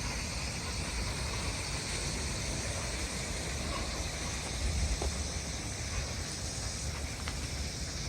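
Steady background ambience: an even hiss over a low, fluctuating rumble, with no distinct events.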